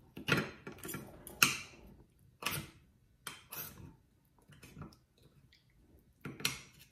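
Spoon and fork clinking and scraping against a plate while cutting meat: a run of short, irregular clicks and scrapes, loudest about a second and a half in and again near the end.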